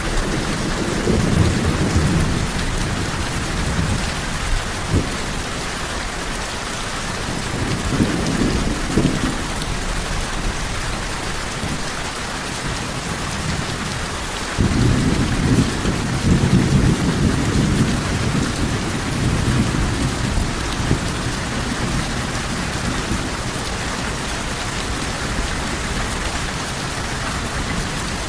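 Steady rain with low rolls of thunder: one a second or so in, another near eight seconds, and a longer one that starts suddenly about halfway through.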